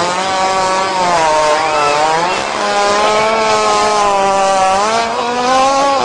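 A hippopotamus passing one long, loud fart: a single unbroken tone that wavers slowly in pitch and rises a little about five seconds in.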